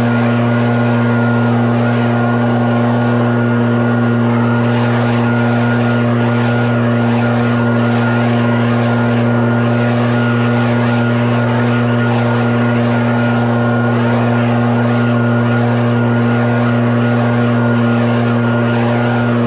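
Leaf blower running steadily at constant speed, a steady engine tone under the rush of air from the nozzle as it blows debris off the lawn.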